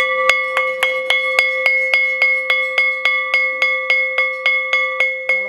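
Metal school bell struck quickly and evenly, about three to four strikes a second, each strike ringing on under the next. This is the rapid ringing of a dismissal bell, sending children out of school.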